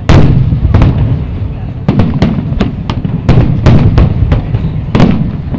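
Fireworks aerial shells bursting in quick succession, a dozen or so sharp reports about two to three a second, over a continuous low rumble.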